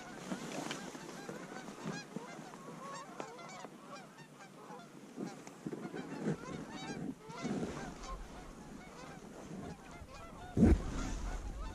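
Canada geese honking and clucking, many short calls overlapping. A sharp thump near the end.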